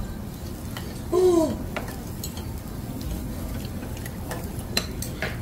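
Metal spoons clinking and scraping against ceramic bowls, a handful of separate sharp taps, over a steady low background hum.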